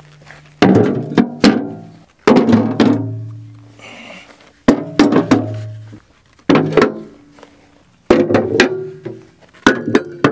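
Heavy 70-pound suitcase weights being dropped one after another into a steel tractor loader bucket, each landing with a sudden, ringing metallic clank, in about six irregular clusters. Background music with sustained low notes plays underneath.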